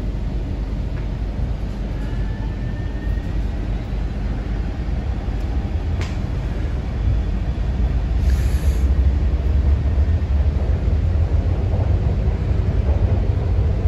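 Hong Kong MTR C-train metro car pulling out of a station in energy-saving mode, heard from inside the carriage: a steady low running rumble that grows louder as the train gathers speed. A faint rising whine comes early, a single click about six seconds in, and a brief hiss about eight seconds in.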